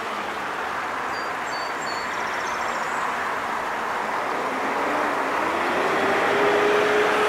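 Small waterfall pouring into a stream pool: a steady rush of falling and splashing water. A few faint high bird chirps come about a second or two in, and a low hum rises in pitch and then holds in the second half.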